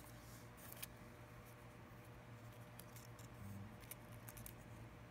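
Faint small clicks and light scrapes of fingers handling an iPhone 6 front screen assembly and its proximity-sensor flex cable. A few scattered clicks sound over a faint steady hum.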